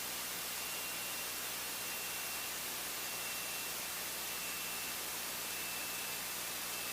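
Steady electronic hiss with a faint, thin high tone: the noise floor of a light aircraft's headset intercom and radio audio feed between transmissions, with no engine noise coming through.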